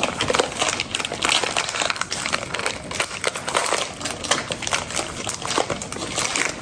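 Plastic packaging crinkling and crackling as it is handled and torn open, a dense run of small irregular crackles throughout.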